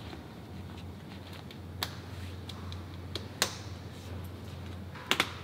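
Sharp clicks of a van bug net's fasteners being pressed home along the sliding-door frame: single clicks about two and three and a half seconds in, and a quick pair near the end, with fainter ticks between, over a low steady hum.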